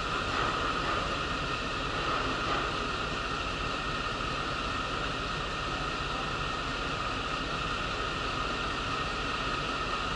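Steady cabin noise inside a city bus: the diesel engine running under an even hiss from the air-conditioning blower.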